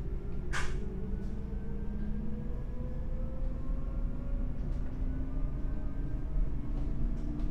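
Pågatåg electric commuter train running, heard inside the passenger car: a steady low rumble with a motor whine that slowly rises in pitch as the train gathers speed. A brief hiss comes about half a second in.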